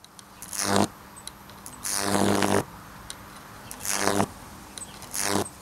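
High-voltage arcing from a homemade microwave-oven-transformer Lichtenberg rig as it burns through the wet plywood between two electrodes. It comes in four buzzing, crackling bursts with a mains hum in them; the longest is about two seconds in and lasts most of a second. Small flames flare at the electrodes.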